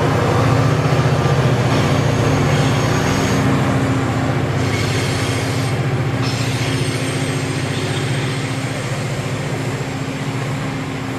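C class diesel locomotive's engine working hard up a steep grade, a steady low drone that slowly fades as it pulls away, with the rumble of loaded container wagons rolling past on the rails.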